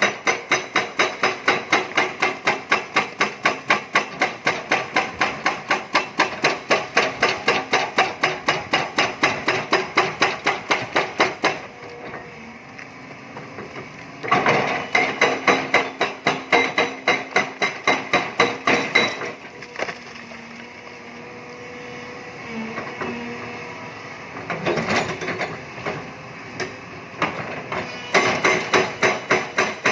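Hydraulic breaker on an excavator hammering limestone rock in rapid, even blows, about three a second, with several pauses where only the machine's steady running hum is left.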